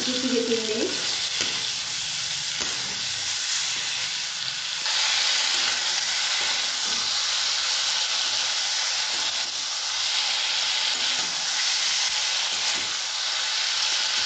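Okra, onions and spice masala sizzling in an aluminium kadai while a metal spatula stirs and scrapes them round the pan. The sizzle steps up in loudness about five seconds in.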